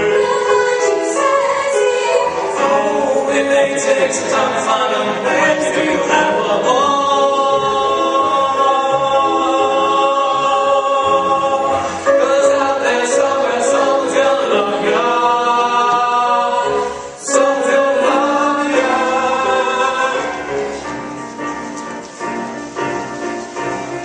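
A stage cast singing a musical number together as a chorus over instrumental backing, with long held notes. The music drops briefly about two-thirds of the way through and grows quieter near the end.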